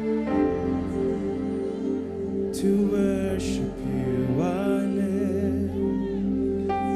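Slow worship music: steady held chords, with a singer's voice sliding up and wavering through a phrase partway through.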